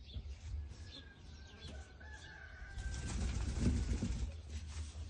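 A sheep eating hay from a plastic tub: dry hay rustling and crunching as it pulls and chews, loudest about three to four seconds in. A thin, held, bird-like call sounds faintly in the background during the first half.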